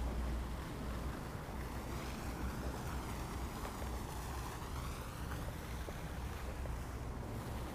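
Steady outdoor noise with a low rumble of wind on the microphone, with no distinct events.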